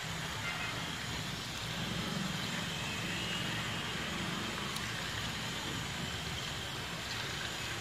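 Battered chicken pakoras deep-frying in hot oil in a wok: a steady sizzle and bubbling, with a low hum underneath from about two seconds in.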